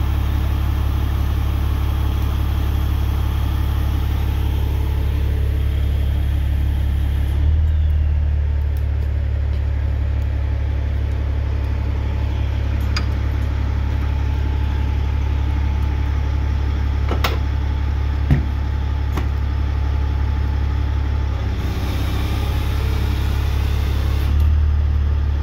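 Heavy-duty wrecker's diesel engine running steadily while its hydraulic underlift is moved, the engine note shifting a little twice. A few sharp metallic clicks and clanks come in the middle.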